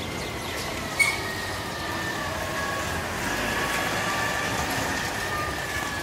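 A backhoe loader's diesel engine running as it drives past, getting louder from about three seconds in, with a high wavering whine over the street noise. There is one sharp metallic clink about a second in.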